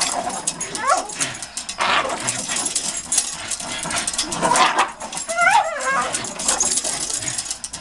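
Dogs tugging at toys hung from chains, giving short high, wavering whines as they pull, over a steady clatter of chain links and clicks. The clearest whine comes about five and a half seconds in.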